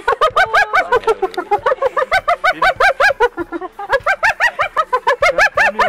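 Spotted hyenas giggling: fast runs of short high-pitched notes that each rise and fall, about eight a second, broken by brief pauses.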